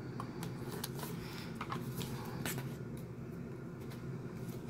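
Hands handling a triangular cardboard poster mailer while picking at its packing tape: scattered small clicks, taps and scrapes of fingers and cardboard, over a low steady hum.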